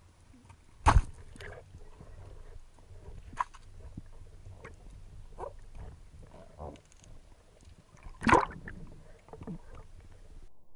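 Water sloshing and gurgling, heard underwater, with scattered small clicks and two sudden loud knocks, one about a second in and another near the end.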